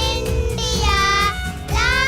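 Young children singing a patriotic song about India over backing music with a steady beat, holding long notes.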